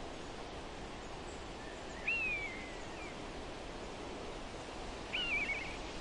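Steady rush of flowing river water, with a songbird calling twice over it: a short falling whistle about two seconds in and a quick warbled phrase near the end.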